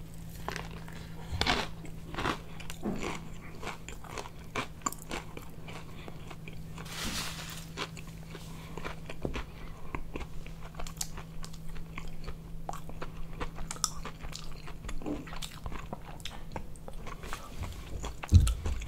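Close-up chewing of a fried chicken sandwich: a bite about a second and a half in, then steady chewing full of small crunches from the crispy fried breading.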